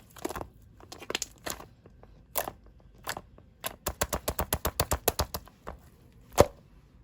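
Crinkly material being handled by hand: scattered crackles, a quick run of clicks a little past halfway, and one louder snap near the end.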